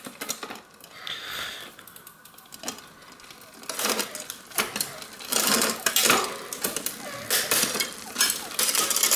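Mountain bike drivetrain turned by hand: the chain runs over the chainrings and cogs with a rapid clicking clatter that starts about four seconds in and comes in uneven spells as the gears are shifted, testing newly fitted derailleur cabling, which shifts well.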